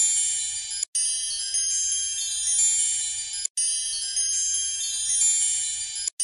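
A looped tinkling chime sound effect: many high, overlapping bell-like tones. It cuts out for an instant about every two and a half seconds, then starts over.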